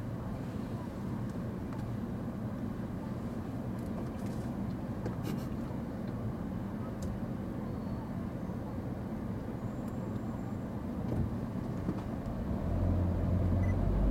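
Car engine idling, heard from inside the cabin as a steady low hum; about twelve and a half seconds in, the low engine note grows louder as the car pulls away.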